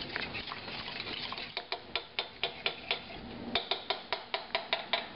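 Wire whisk stirring a thick cream-cheese white sauce in a stainless steel pan, at first a soft scraping. From about a second and a half in, the whisk clicks against the side of the pan about four to five times a second, with a brief pause around the middle.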